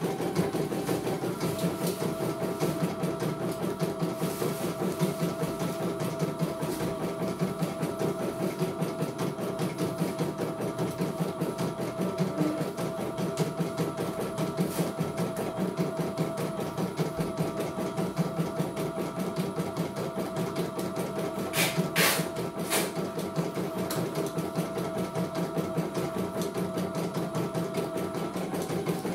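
CNY E900 computerised embroidery machine stitching a design on hooped fabric: a rapid, even needle rhythm with a steady motor hum. Two sharp clicks are heard about three-quarters of the way through.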